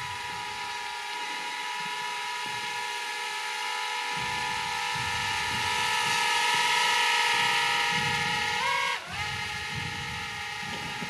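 SIMREX X300C mini drone's propellers and small motors whining in flight, a steady high-pitched buzz. About nine seconds in, the pitch drops sharply and climbs straight back.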